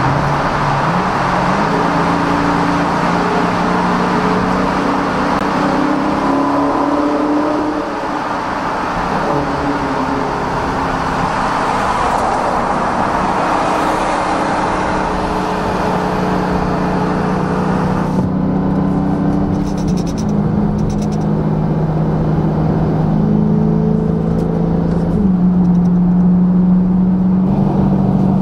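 Dodge Charger Scat Pack's 392 (6.4 L) Hemi V8 exhaust heard through an open window, the revs climbing and falling in steps as it accelerates through the gears. The dense, echoing noise of the tunnel cuts off about 18 seconds in as the car leaves it, and the engine note then sounds drier.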